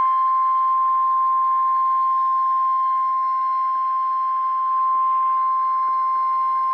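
NOAA Weather Radio warning alarm tone: a single steady 1050 Hz tone over faint radio hiss. It is the alert signal that opens a severe thunderstorm warning broadcast.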